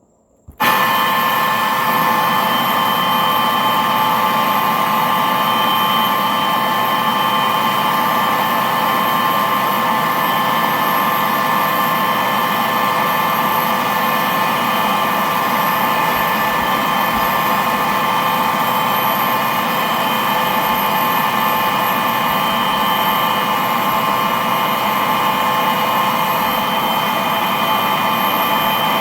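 A steady engine drone with several held tones over a noisy hiss. It cuts in suddenly about half a second in and keeps an even level throughout.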